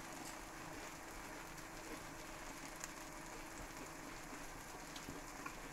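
Grated cheese frying in a pan: a faint, steady sizzle with a few small crackles.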